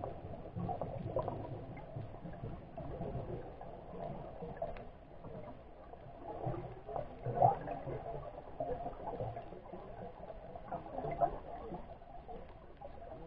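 Underwater ambience picked up through a camera's waterproof housing: a muffled, uneven hum and gurgle with scattered clicks and knocks, the sharpest a little past halfway and again near the end.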